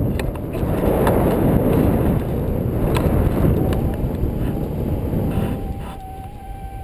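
Wind buffeting an action camera's microphone in paraglider flight: a loud, deep rushing that is strongest in the first half and eases toward the end. A faint steady tone comes in about five and a half seconds in.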